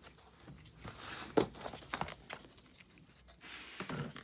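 A plastic worm bin's lid being lifted off: a few light plastic clicks and knocks, the sharpest about a second and a half in, with soft rustling between.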